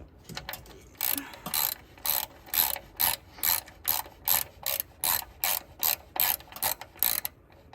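Ratcheting socket wrench being worked in steady strokes, each swing giving a short burst of ratchet clicks, a little more than two a second.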